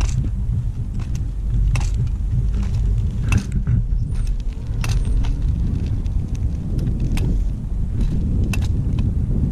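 Off-road inline skates with large air-filled wheels rolling on an asphalt path: a steady low rumble, with irregular sharp clicks and light metallic rattles about once a second.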